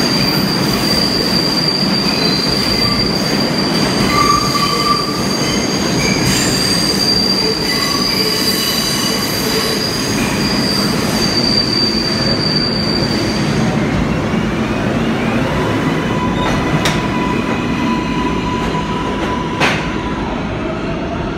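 NYC subway R142/R142A train running through the tunnel: a constant rumble under a steady high-pitched wheel squeal, which stops about two-thirds of the way through. After that a lower steady tone carries on, with two sharp clicks near the end.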